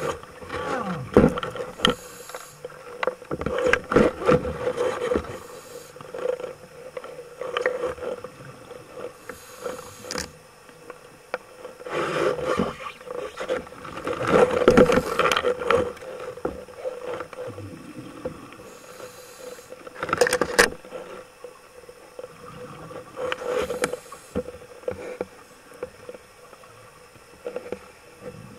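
Outboard motors of panga fishing boats overhead, heard underwater: a steady hum with whines that rise and fall in pitch, and rushes of noise every few seconds.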